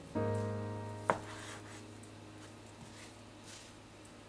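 A kitchen knife cutting through thick deep-fried tofu and knocking on the cutting board, sharply once about a second in, then a few fainter cuts. Background music with a held note that fades runs underneath.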